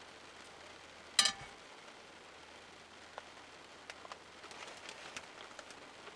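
Steady patter of rain, with one sharp clink that rings briefly about a second in, the loudest sound, and a few small ticks later on.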